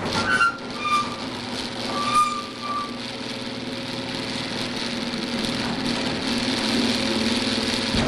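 Screw-drive garage door opener running, its motor turning the freshly greased worm screw to raise the door, a steady mechanical hum with a few short squeaks in the first few seconds. The motor cuts off sharply near the end.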